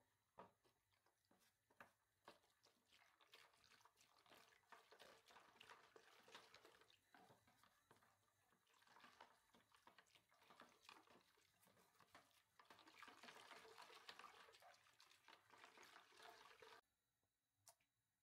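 Faint liquid sounds, like pouring and sloshing, mixed with scattered small clicks and taps of kitchen work; they stop abruptly near the end.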